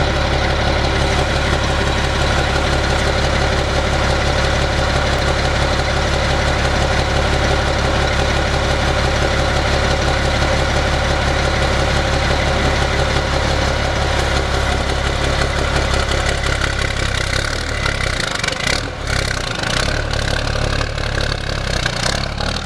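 Straight-piped diesel engine of a 2004 Sterling truck idling steadily through its open exhaust. The note becomes less even about eighteen seconds in.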